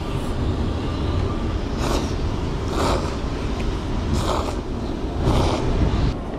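A person slurping instant curry ramen noodles from a cup, four short slurps about a second apart, over a steady low rumble.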